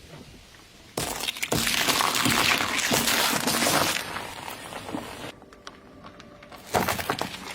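Objects crunching and cracking as a car tyre rolls over and crushes them: a loud crackling crush of about three seconds starting about a second in, then quieter crackles, and another loud crunch near the end.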